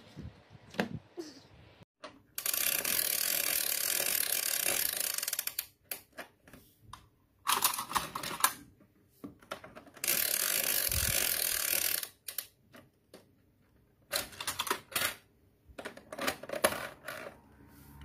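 Hard plastic clicking and clattering of a Tomica spinning parking-tower toy worked by hand, with two stretches of steady rattle a few seconds long as its lift platform spins down the spiral screw.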